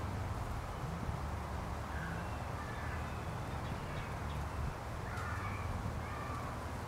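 Birds calling in the distance: a few short calls about two seconds in and a small cluster around five seconds in, over a steady low rumble.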